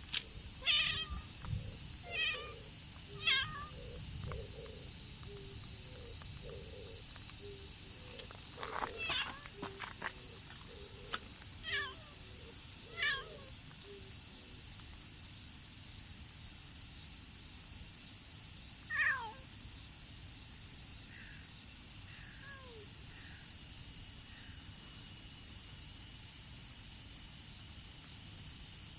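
A tortoiseshell cat meowing: a string of short meows, most of them in the first half, over a steady high hiss.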